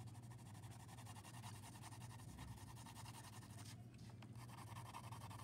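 Faint scratching of a watercolour pencil shading on paper, over a low steady hum.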